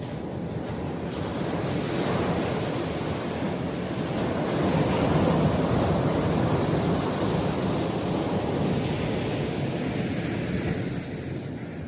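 Sea surf washing ashore, a rushing wash that swells to its loudest about halfway through and eases off near the end, with some wind on the microphone.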